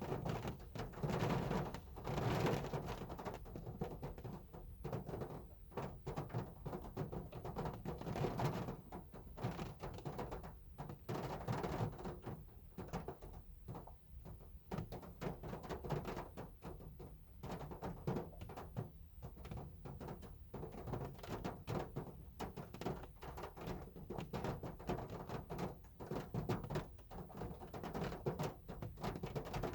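Heavy rain falling on a car's body: a dense, irregular patter of drop impacts over a low rumble.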